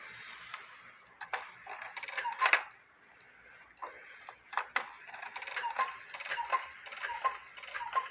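Homemade cuckoo clock ticking steadily, a little more than one tick a second, with a few louder knocks and rustling in the first few seconds.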